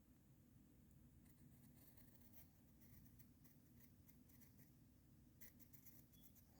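Near silence with faint, irregular scratchy strokes of a pencil drawing on paper, a quick cluster of them near the end.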